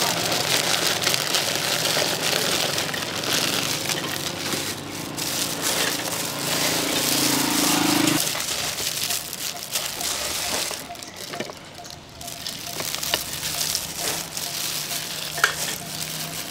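Steady sizzling and crackling of food cooking, with a low hum underneath that stops about halfway through.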